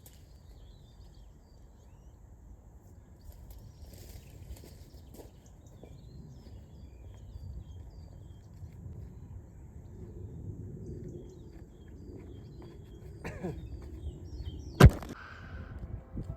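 Outdoor garden ambience: a low steady rumble with faint bird chirps, and a single sharp click near the end.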